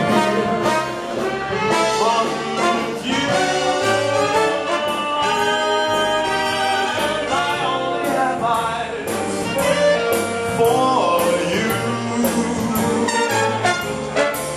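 Live dance band with trumpets and trombones playing an instrumental jazz ballroom number with a steady beat.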